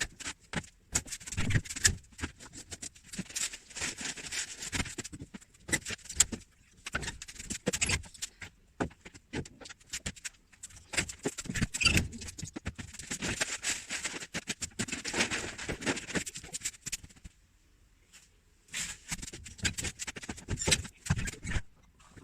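Irregular scraping and rustling with many small clicks and knocks, pausing briefly about three-quarters of the way through.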